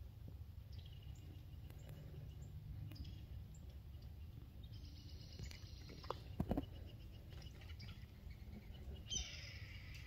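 Faint outdoor ambience with a steady low wind rumble and several bird calls: short high chirps, a longer call about five seconds in, and a call that falls in pitch near the end. Two or three soft knocks a little after six seconds.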